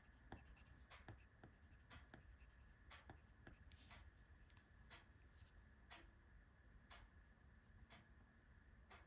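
Faint scratching of a coloured pencil on paper: short, irregular strokes, about one or two a second.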